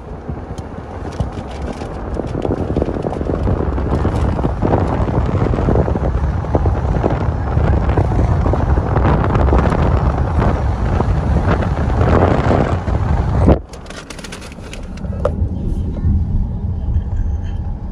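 Car driving along a paved road, with steady rushing road and wind noise that builds over the first few seconds. About three-quarters of the way through a sharp knock is followed by a sudden drop to quieter driving noise.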